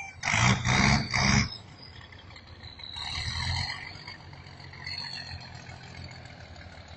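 Logging truck running, with a loud rasping burst in three quick pulses lasting about a second near the start, then a steadier low engine rumble that swells briefly in the middle.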